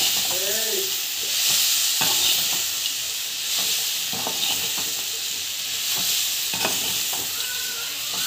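Fried baby corn, onion and capsicum sizzling in a hot kadai while a spoon stirs and tosses them. There is a steady hiss, with occasional scrapes and knocks of the spoon against the pan.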